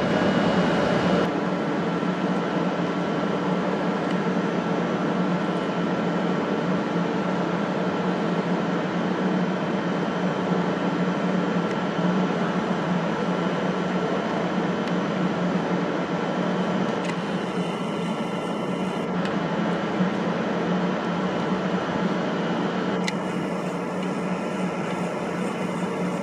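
Steady mechanical hum of a stationary electric regional train's air conditioning and auxiliary equipment, with a faint steady whine. A higher hiss joins for a couple of seconds about two-thirds of the way through, and again near the end.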